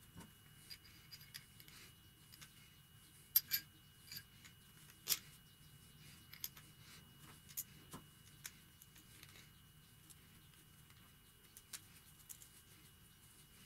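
Small metal parts of a hand vise clicking and tapping against each other as it is put back together by hand. A scatter of short, sharp clicks, the loudest about three and five seconds in, over a faint steady hum.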